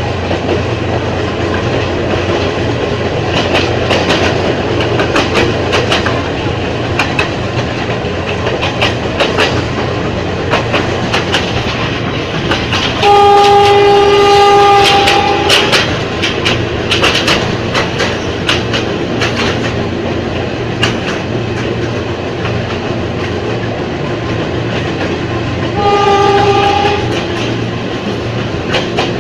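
Ex-JR 203 series electric multiple unit running along the track, its wheels clacking irregularly over rail joints under a steady low running hum. Midway it sounds a long two-tone horn blast, the loudest sound, and near the end a short one.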